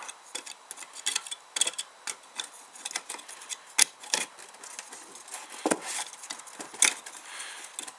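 Irregular small clicks and taps as the throttle mechanism is wiggled and pushed into the body of a Victa plastic lawn mower carburettor, with a few sharper clicks about four and seven seconds in.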